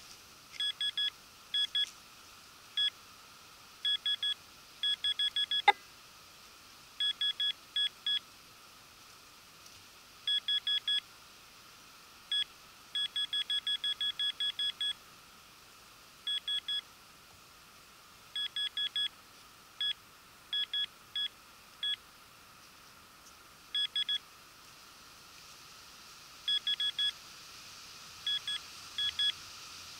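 Metal detector giving short beeps, all of one pitch, in irregular quick runs of two to about ten: its signal for metal under the search coil. A single sharp click sounds about six seconds in.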